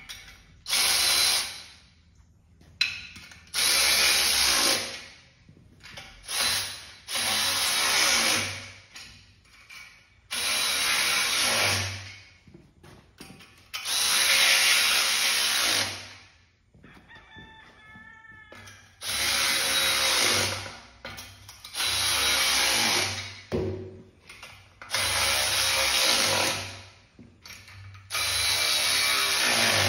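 Cordless power drill driving in bolts, run in about ten bursts of one to two seconds each with short pauses between, as the casters and hardware of a steel cart are fastened.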